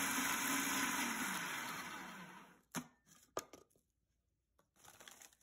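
Small electric food processor grinding dry bread into crumbs, its blade whirring loudly and then winding down with falling pitch about two and a half seconds in. A couple of sharp plastic clicks follow as the lid is taken off.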